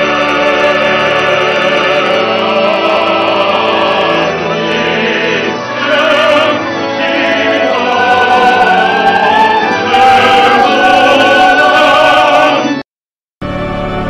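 Music with operatic, choir-like singing over sustained chords. Near the end it cuts off suddenly, and after a brief silence a different piece of music starts.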